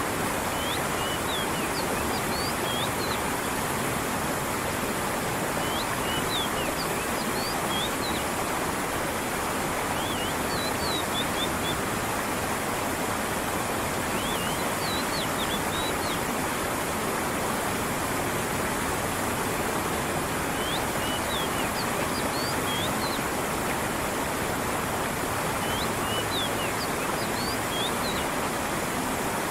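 Steady rush of a stream's falling water, with small birds chirping in short clusters of high notes every few seconds.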